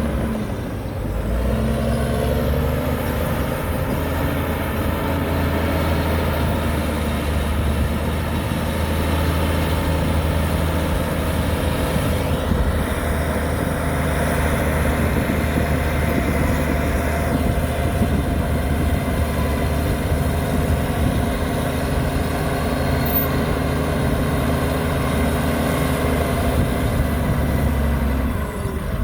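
Heavy diesel engine of earthmoving machinery running steadily under load, with a harsher stretch in the middle.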